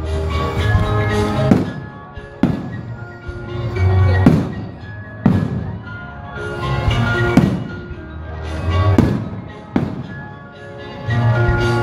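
Fireworks shells bursting with sharp bangs about every one to two seconds, about seven in all, over loud music that plays throughout.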